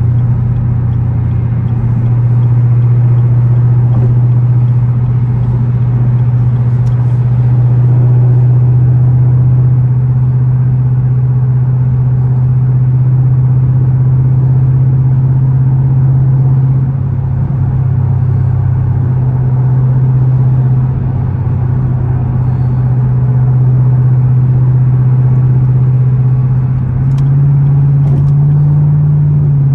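Nissan Z's engine drone while driving, a steady low hum. It dips briefly twice in the middle and steps up in pitch near the end.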